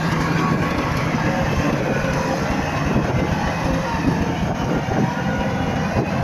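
Bulldozer's diesel engine running steadily under load, with a continuous clatter from its steel tracks.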